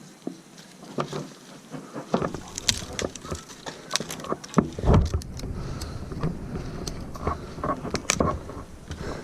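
Irregular knocks, scrapes and rustles of handling close to the microphone, with the heaviest thump about five seconds in.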